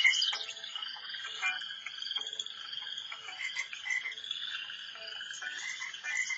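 Ringtone number 8 on an LG enV2 cell phone playing through the phone's small speaker: a busy run of short, high chirping calls over a steady high tone, cutting off at the end.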